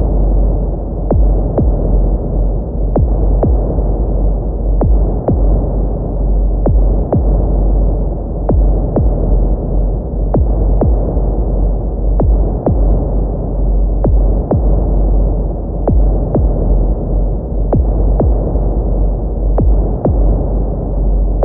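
Heartbeat sound effect: slow double beats, lub-dub pairs about every two seconds, over a steady low rumbling hum.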